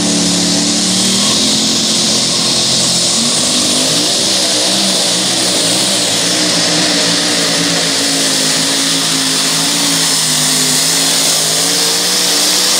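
Twin-turbocharged two-wheel-drive pulling truck's engine running hard at full throttle as it drags the weight sled. Its pitch shifts a few seconds in, then holds steady and loud over a hissing whine.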